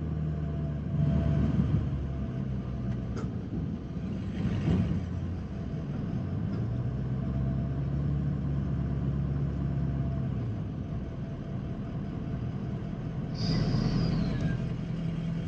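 Pickup truck engine running at low speed, heard from inside the cab as the truck creeps forward towing two loaded grain wagons, with a few brief louder rumbles along the way.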